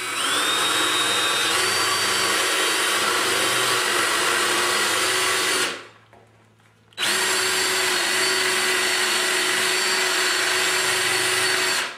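DeWalt drill with a 7/16-inch wood bit boring into a wooden screen frame. The motor whines up to speed and runs steadily, rising a little in pitch, stops for about a second halfway through, then runs again until near the end.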